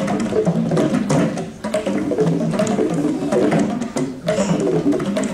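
Mridangam ensemble playing a fast rhythm of pitched, ringing drum strokes, with brief breaks about one and a half and four seconds in.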